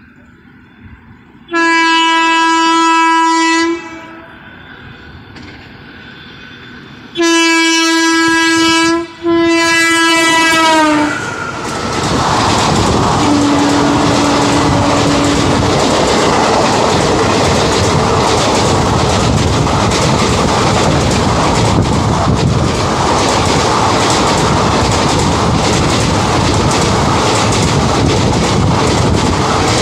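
Electric locomotive's air horn sounding three blasts: one of about two seconds, then two more close together, the last dropping in pitch as the engine passes. It is followed by a brief lower horn note and the steady clatter of ICF passenger coaches' wheels running past over the track.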